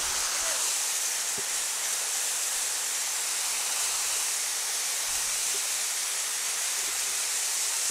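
Waterfall pouring down a rock face onto boulders, heard from the foot of the falls: a steady rushing hiss of falling water.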